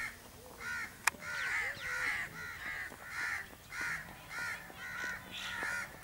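Crows cawing over and over, about two short calls a second, with a single sharp click about a second in.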